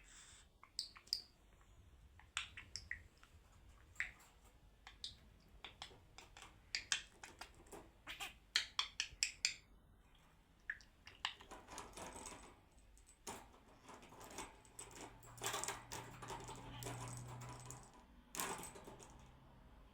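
Irregular light clicks and taps of small hard objects, with quick runs of them in the middle, as a pet bird pecks at and knocks its toys about. A faint low hum sounds for a few seconds near the end.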